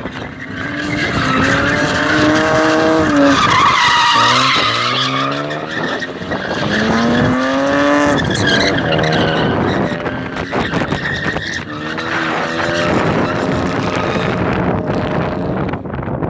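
BMW drift car engine revving hard in repeated climbs, each cutting back sharply as the driver shifts or lifts, while the rear tyres screech and slide on the concrete. The loudest tyre squeal comes about four seconds in.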